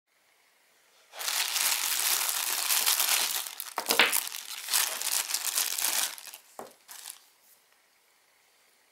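Clear plastic packaging bag crinkling and rustling as it is opened and the contents are pulled out, starting about a second in and lasting about five seconds, followed by a couple of short crackles.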